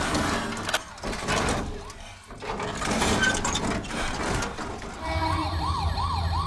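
Small electric RC toy-truck motor and plastic gears whirring as the truck crashes over a guardrail and tumbles. About five seconds in, an electronic siren starts, wailing up and down quickly, about three times a second.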